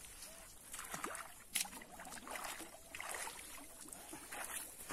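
Shallow pond water splashing and sloshing in irregular bursts as a large fish is dipped and swished in it, with wading steps in the shallows.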